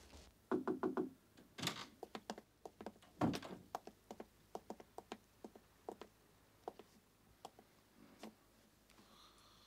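Footsteps climbing stairs and crossing a hard floor, with two louder thuds about two and three seconds in. The steps then come about every half second and stop near the end.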